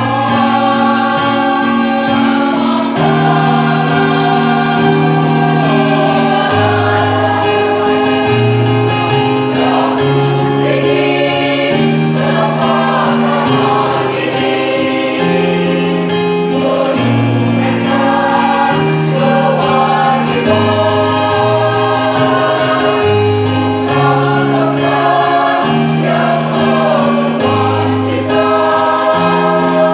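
Choir singing in harmony, holding chords that change every second or two over a moving low part.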